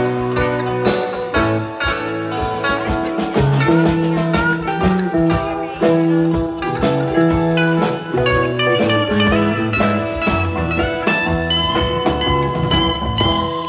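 Band playing a blues-rock number: guitar lines over bass and drum kit, with the guitar holding long high notes near the end.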